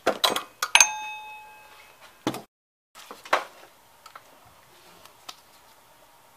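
Sharp metallic clanks and knocks of hand tools against engine-bay metal. One clank about a second in rings on briefly like struck steel. After a short dropout there is one duller knock and a few faint ticks.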